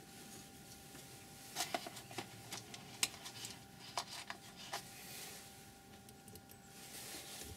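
Loose wood screws clicking and rattling in their cardboard box as a hand picks one out: a run of small sharp clicks lasting about three seconds, starting about a second and a half in.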